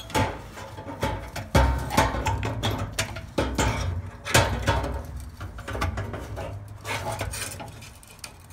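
Irregular metal scraping, rubbing and knocking as a gas water heater's burner assembly is worked out of the combustion chamber through its access opening, with several sharp knocks and dull bumps.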